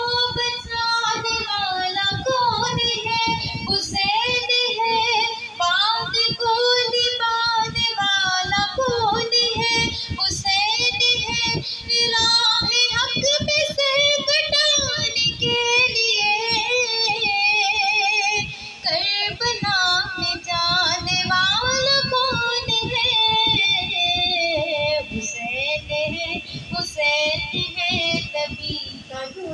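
A high solo voice singing a manqabat, a devotional Urdu song in praise of Imam Hussain, in long ornamented notes that slide up and down in pitch.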